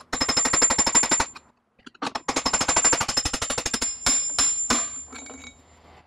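Claw hammer tapping quickly on a long thin metal rod to drive the pedal axle out of an InMotion V8F electric unicycle, metal on metal with a high ringing tone; the axle sticks where the set screw has left an indentation. Two runs of rapid taps with a short pause after about a second, then a few slower, separate blows near the end.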